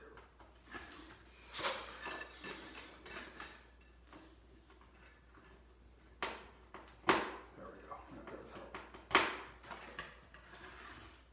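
Smoke alarm parts and mounting hardware handled by hand: scattered clicks and clatter with four sharper knocks, the loudest about seven and nine seconds in.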